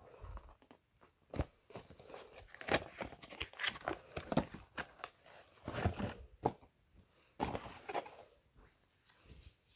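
Cardboard retail box being opened and handled, and its contents slid out: a quick run of rustles, scrapes and small knocks of card and packaging, busiest between about one and eight seconds in.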